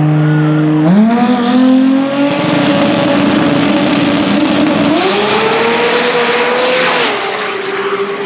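Toyota AE86 Sprinter Trueno drag car's engine held at steady revs on the start line, then launching about a second in. The engine note jumps up and climbs in steps as the car pulls away down the strip, then drops sharply about seven seconds in.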